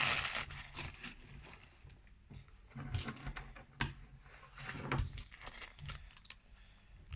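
Irregular clicks and short rustles of toy packaging being handled and opened, in small clusters with quieter gaps between.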